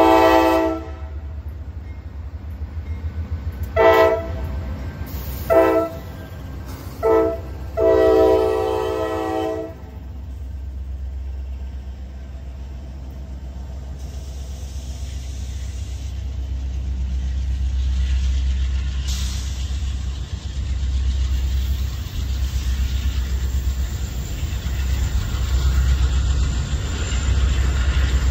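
Norfolk Southern freight locomotive's horn blowing as it passes: one blast at the start, three short toots about a second and a half apart, then a longer blast that stops about ten seconds in. After the horn, the low rumble of the locomotives and double-stack container cars rolling by, slowly growing louder.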